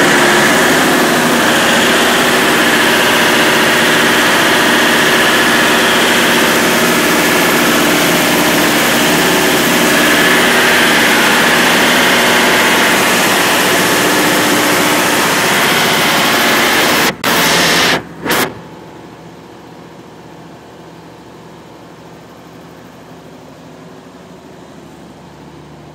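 Large Champion Advantage two-stage reciprocating air compressor running loudly and steadily. About 17 seconds in, the sound breaks off in a few short dropouts and then settles to a much quieter steady hum.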